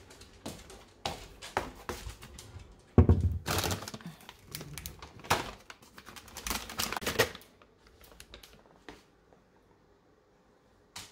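Light clicking of a dog's claws on a wooden floor. About three seconds in there is a sudden knock, then several seconds of a plastic bag of dog chews crinkling as a hand rummages in it.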